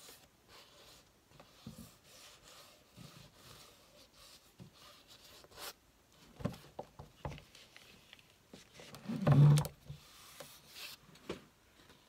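Gloved fingers rubbing and smearing wet acrylic paint across a canvas: soft, scattered rubbing noises, with one louder thump about nine seconds in.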